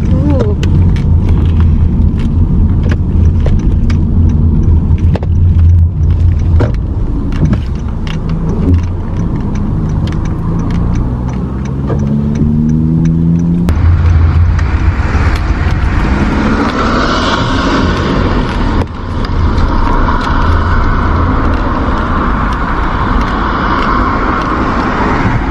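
Car interior noise while driving: a steady low rumble of engine and tyres, with scattered light ticks. About halfway through it changes suddenly to a hissier noise.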